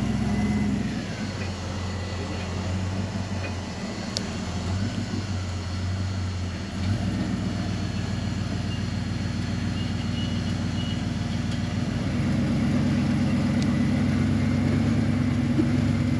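Rock buggy engine running under load as it crawls up a steep rock face. The engine note drops about a second in and picks up again about twelve seconds in.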